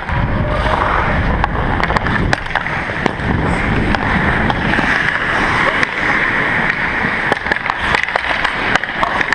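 Hockey skates striding and scraping over rink ice, with air rushing over a skater-worn camera's microphone as it moves, and scattered sharp clicks of sticks and puck.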